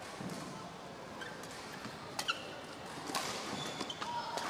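Badminton rackets striking the shuttlecock in a doubles rally: a few sharp, separate hits about two, three and four seconds in. Court shoes give short squeaks on the floor, over a steady murmur from the hall.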